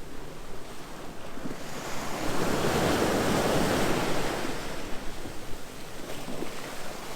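Sea waves washing, swelling to a peak a few seconds in, easing off, then starting to build again near the end, with wind buffeting the microphone.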